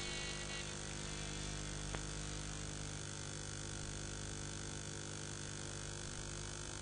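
Background music dying away in the first second, leaving a steady electrical hum and hiss, with a single faint click about two seconds in.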